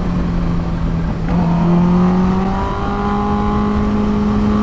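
Kawasaki Ninja H2's supercharged inline-four running through a Vandemon Performance exhaust under way. Its pitch holds, dips slightly about a second in, then climbs slowly and steadily as the bike pulls, over wind noise.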